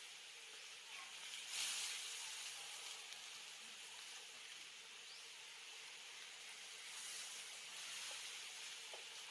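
Faint, steady outdoor hiss, with a brief louder rustling burst about one and a half seconds in and a milder swell around seven seconds.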